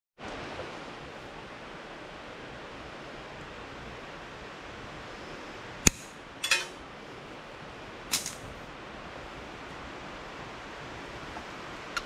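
A few sharp metallic clicks, about six and eight seconds in, as snap-ring pliers work the C-clip retainer off the end of a Dana 25/27 front axle shaft, over a steady hiss.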